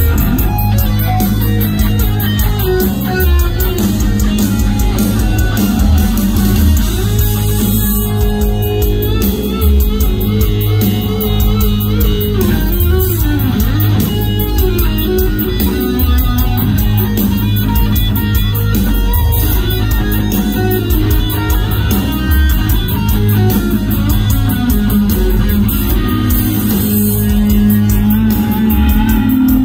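Live rock band playing loud: a hollow-body electric guitar plays bending lead lines over drums and bass guitar.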